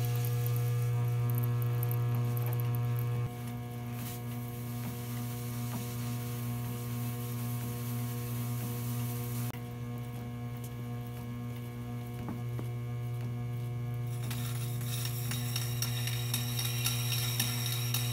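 Salvaged 2.65 HP treadmill DC motor on an AC-to-DC speed controller, driving an antique sandstone grinding wheel by a flat belt. It starts suddenly and runs with a strong steady electrical hum, which drops in loudness about three seconds in and again about nine seconds in. From about fourteen seconds in, a rising gritty scraping joins as a steel blade is held to the turning stone.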